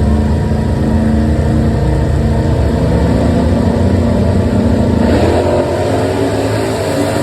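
A car engine running loudly with a steady low note; about five seconds in its pitch shifts up and the sound turns brighter, as the engine is revved.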